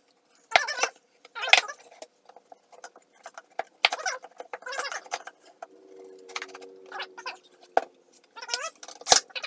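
Short squeaky, sputtering noises from squeezing a wood-glue bottle and working glued 3/4-inch maple plywood box sides into place, coming in bursts every second or so. Two sharp clicks come near the end.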